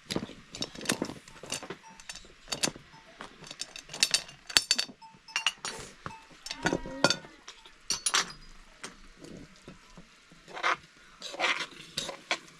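Irregular sharp clinks and knocks of cooking utensils and dishes, with a goat bleating briefly about seven seconds in.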